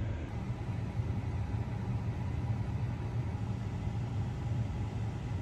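Pickup truck engine idling, a steady low hum heard from inside the cab.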